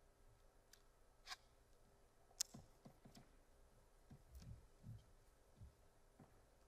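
Near silence with a few faint sharp clicks and soft low thumps from footsteps and movement around a podium microphone.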